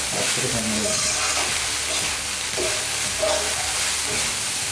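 Nasi goreng (chilled cooked rice with chicken, egg and vegetables) sizzling steadily as it is stir-fried in a pan over high heat.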